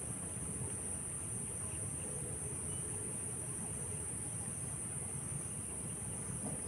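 Steady, high-pitched drone of a chorus of insects, unbroken throughout, over a low rumble.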